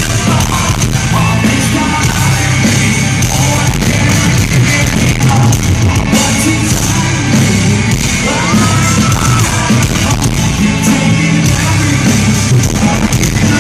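Live heavy metal band playing at full volume in an arena, with singing over loud guitars and drums. The sound is distorted and muddy, as picked up by a phone's microphone.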